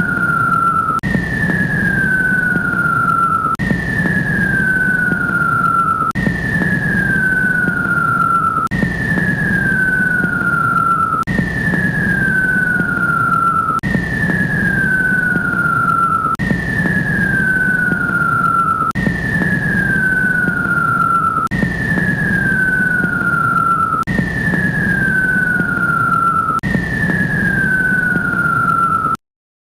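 Jetliner engines: a low rumble under a high whine that falls in pitch, the same short stretch repeating about every two and a half seconds, then cutting off suddenly near the end.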